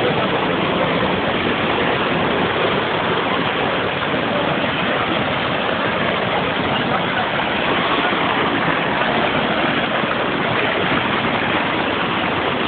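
Feather Falls waterfall: a steady, unbroken rush of falling water.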